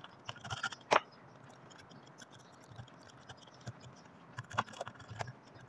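Small clicks and scrapes of a red jumper wire being fitted to the terminals of a switch and socket on a switch board, with the sharpest click about a second in and a few more near the end.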